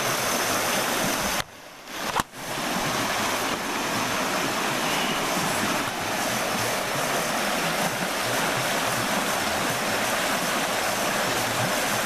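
Rushing water of river rapids, a steady full hiss. It drops out briefly about a second and a half in, and comes back with a click.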